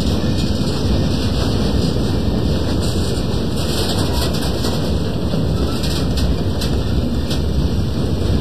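HO scale model freight cars rolling along the track close by: a steady rumble of metal wheels on rail, with a light click now and then.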